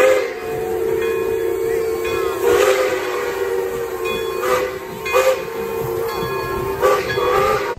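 Steam locomotive whistle blown in one long blast of several tones sounding together, over the hiss of steam. A few sharp puffs of steam break in partway through.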